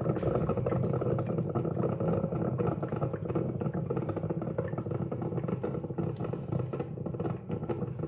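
Melitta Optima Timer drip coffee maker gurgling and sputtering steadily as its heater pushes the last of the reservoir water through near the end of a brew cycle, a dense crackle of small pops over a low steady hum.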